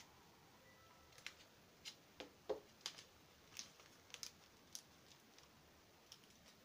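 Clear plastic fruit-fly culture cup handled and turned in the hands: faint, scattered clicks and crinkles of plastic, a few louder ones about two and a half to three seconds in.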